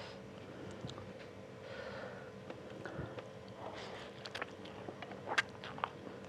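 Close-miked eating sounds: a person taking a forkful of spicy fried instant noodles into the mouth and chewing. There are soft breaths at first, then a run of sharp, wet mouth clicks and smacks in the second half.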